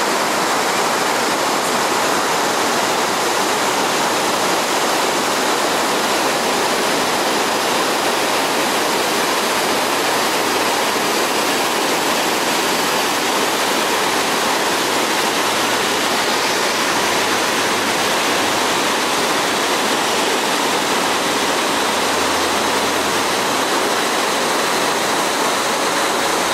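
The Urubamba River in flood: swollen, muddy rapids rushing over boulders, making a loud, steady noise.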